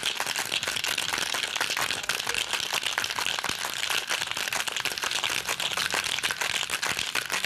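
Ice rattling hard inside a Boston cocktail shaker being shaken vigorously by hand, a fast, continuous rattle of ice against the tin, chilling a rum cocktail.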